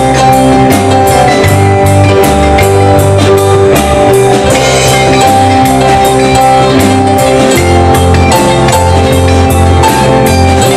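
Rock band playing live: electric guitars, bass guitar and a drum kit over a steady drum beat, in a passage without vocals.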